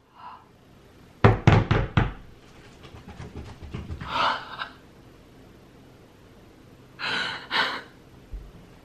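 A woman's excited, breathy gasps turning into muffled crying breaths near the end, with a quick run of about five knocks a little over a second in.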